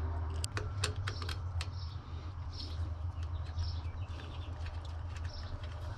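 Small sharp clicks and ticks of a screwdriver and wire ends against a motor's terminal screws, mostly in the first two seconds. Underneath are a low steady hum and faint high chirps repeating every second or so.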